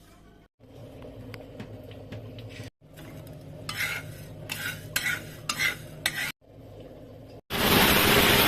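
A spoon stirring and scraping in a pan in short clips, with repeated scrapes in the middle. Near the end comes a loud, steady rushing whirr for about a second and a half.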